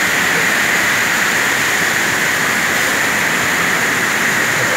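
Fast-flowing river water rushing, a loud, steady noise that does not change.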